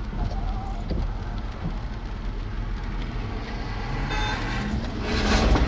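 Steady low rumble of wind and road-vehicle noise, swelling to its loudest near the end as a vehicle comes close.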